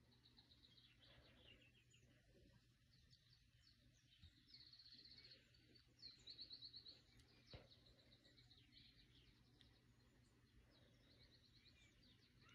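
Faint birdsong: short high chirps and rapid trills that come and go, loudest about six seconds in, over a low steady hum, with one sharp click about halfway through.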